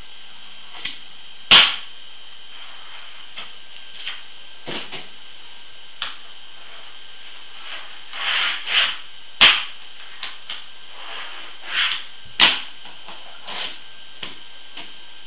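Tech Deck fingerboard being flicked and landed on a cardboard-covered table: irregular sharp plastic clacks of the deck and wheels hitting the surface, the loudest about a second and a half in, about nine and a half seconds in and about twelve seconds in, with short scraping rolls of the small wheels between them.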